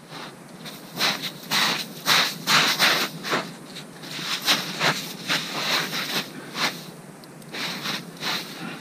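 Footsteps crunching in snow, about two to three steps a second, with a short pause near the end.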